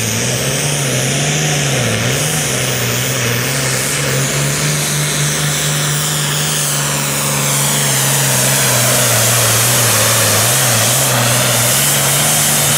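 Super Farm class pulling tractor's diesel engine running at full throttle under load, dragging the weight sled down the track. The engine note holds steady, with brief dips about two seconds in and again near the end, and a high whine falls in pitch midway.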